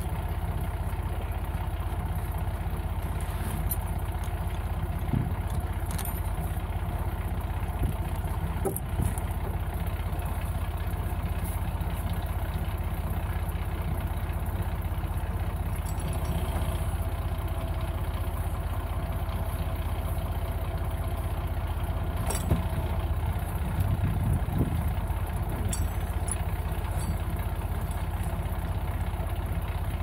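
Tractor engine idling steadily, with a few short knocks and clicks over it.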